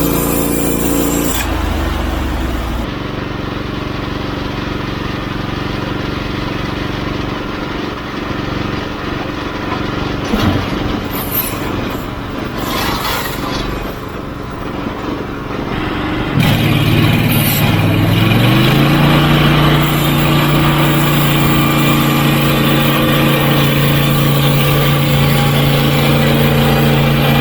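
Portable sawmill's gas engine running. About two-thirds of the way through it speeds up over a couple of seconds, then holds steady at high revs.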